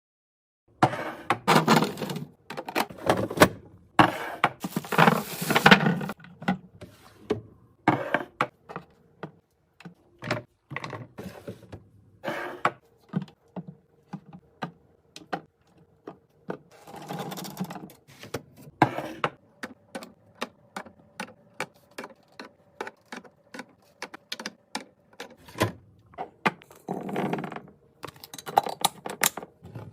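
Restocking sounds: many clicks, taps and knocks of plastic and glass containers being handled and set down, with several short bursts of rustling. In the second half the clicks come quickly, about two a second.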